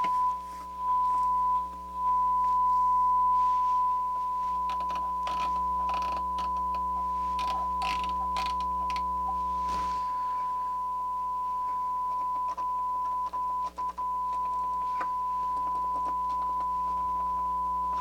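A steady test tone played through the Pioneer SX-626 receiver into its speaker, with clicks and rustling from its knobs and switches being worked partway through. The tone dips in level near the start and cuts out briefly a few times near the end; the pots sound clean.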